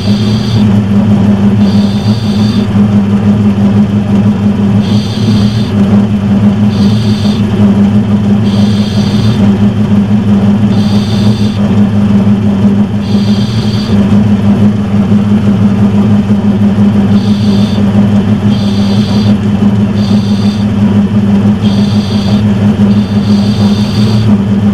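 Metal lathe running steadily with a low motor hum, while a higher-pitched sound comes and goes in short patches every second or two.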